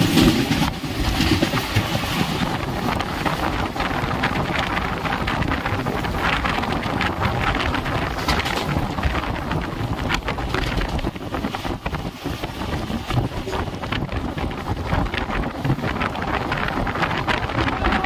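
Moving passenger train heard from its open door: a steady rush of wind buffeting the microphone over the running noise and irregular clatter of the wheels on the track.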